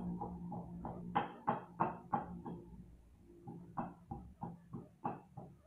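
Guinea pigs squeaking: a run of short, sharp squeaks, about three a second, over a low steady hum that fades about halfway.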